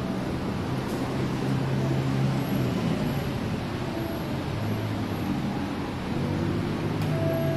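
City street traffic: vehicle engines running with a steady wash of road noise.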